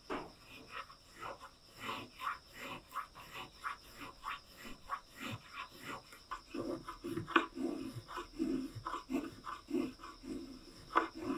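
A small metal spokeshave taking quick, short shaving strokes along a wooden rice scoop's handle, a couple of rasping cuts each second. The strokes grow fuller and a little louder about halfway through, as the cutting moves toward the bowl.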